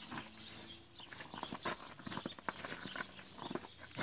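A calf's hooves and a man's boots stepping and scuffing on gravel in play, a run of irregular short crunches starting about a second in.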